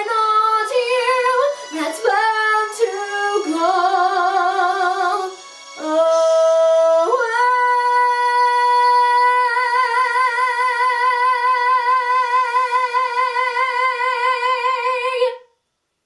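A woman singing a musical-theatre song solo: a few short sung notes, then a final long note held for about eight seconds with a wide, even vibrato that stops abruptly near the end.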